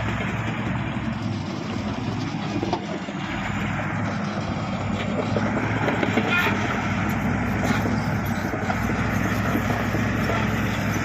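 Engine of a heavy earthmoving machine running steadily under load, a continuous low hum with a rough noisy layer over it.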